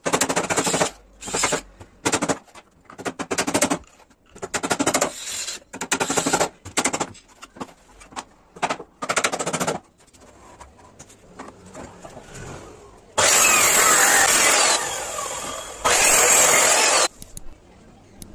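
Woodworking tools working wood: a string of short, rough bursts of noise in irregular rhythm, then two loud, steady runs of tool noise of about a second and a half and one second near the end.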